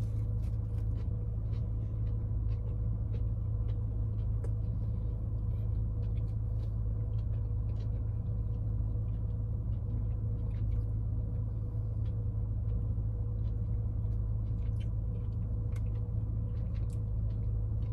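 Steady low hum of a parked car idling, heard from inside the cabin, with scattered light clicks from handling the foam takeout box and eating.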